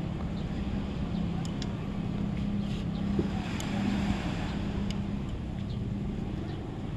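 A motor running steadily at an even, low pitch, with wind buffeting the microphone.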